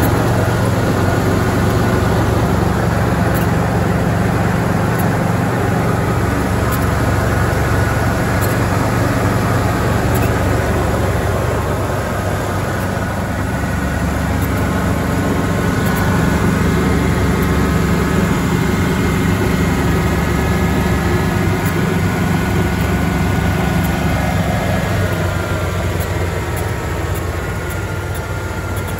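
1993 Ford Bronco Eddie Bauer engine idling steadily, heard close up over the open engine bay while it warms up after a cold start.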